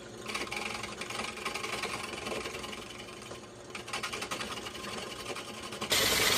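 Drill press spinning a longleaf pine block at low speed while its turned profiles are worked by hand, a steady rhythmic whirring and rasping. Near the end a sudden, louder noise takes over.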